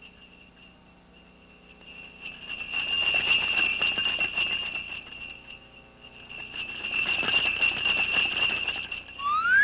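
Sleigh bells jingling as the sound effect for Santa's sleigh arriving, swelling up twice. A rising whistle-like glide starts just before the end.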